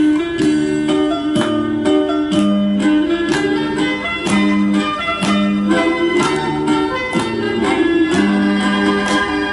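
Ocarina ensemble playing a lively piece over instrumental accompaniment, with held melody notes over a regular beat.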